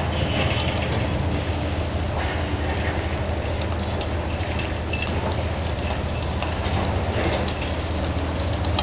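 Diesel engines of high-reach demolition excavators running with a steady low hum, over scattered cracking and clatter of concrete and debris being broken off the building.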